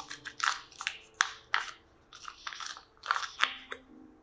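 Dry crunching of a candy-studded cookie being picked apart by fingers: a run of short, irregular crunches, the sharpest about a second in, that stop near the end.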